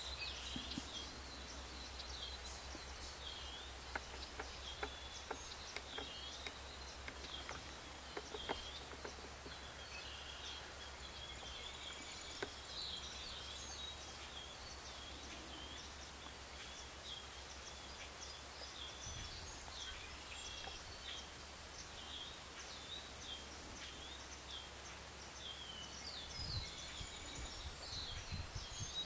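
Small birds calling and chirping over and over in short high notes, with a steady high hiss and a low rumble underneath.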